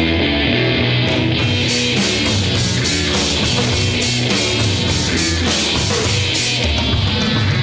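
Rock theme music: an electric guitar riff over a steady drum beat.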